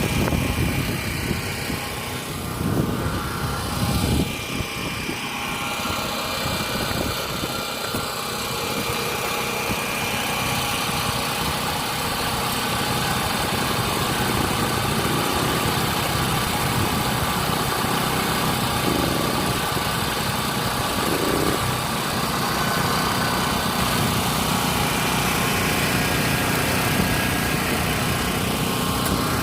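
Portable open-frame generator's small engine running steadily.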